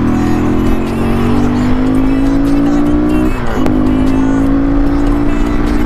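KTM RC390's single-cylinder engine accelerating through the gears. Its pitch climbs steadily, drops at a gear change about three and a half seconds in, then climbs again.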